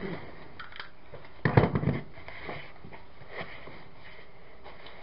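Cardboard box being opened and its contents handled: a quick, loud cluster of crackling knocks about a second and a half in, with faint scattered handling clicks around it.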